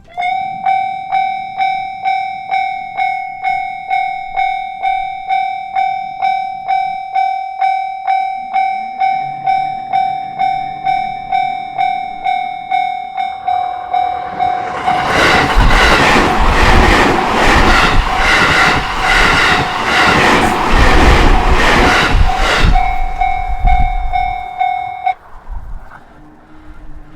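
Japanese level-crossing warning bell ringing a rapid, evenly repeated ding. A train approaches and runs over the crossing for about eight seconds, loud and rumbling, drowning the bell. The bell rings on briefly after the train has passed and stops a little over two seconds later.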